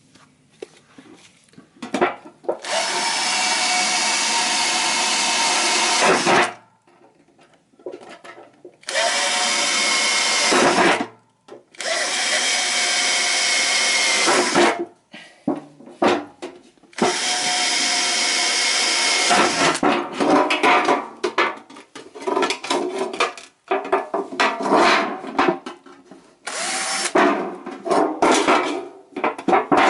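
Electric drill boring into a thin metal can, running in spells of a few seconds with a wavering whine, then in short stop-start bursts near the end.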